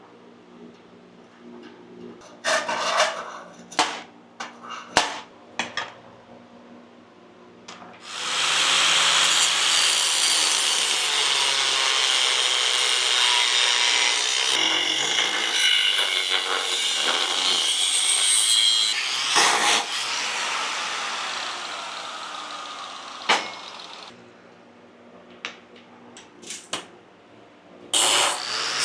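A power tool cutting steel plate, running steadily for about sixteen seconds from about eight seconds in and starting again near the end. Several sharp knocks come before it.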